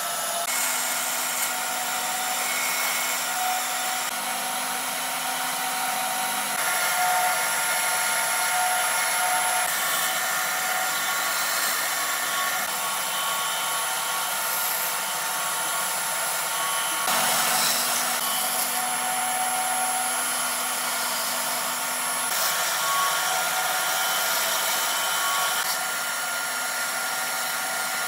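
Band saw running steadily while its blade cuts a wooden board in short cuts, a constant whir with thin whining tones that shift abruptly every few seconds.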